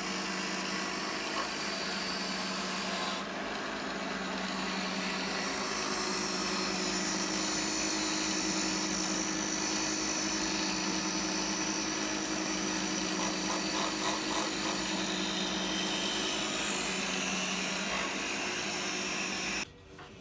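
Bench grinder motor running steadily, belt-driving an ATV axle that spins in pillow-block bearings as a makeshift lathe. A file held against the spinning steel axle makes a steady scraping hiss as it turns the axle down. The sound drops away abruptly near the end.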